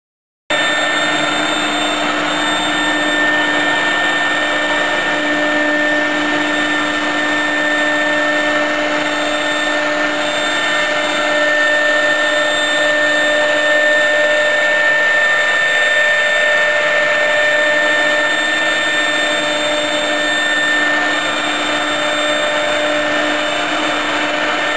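CNC router spindle running and its bit cutting a groove in an MDF board: a loud, steady whine with a few held tones over a rushing cutting noise, starting about half a second in.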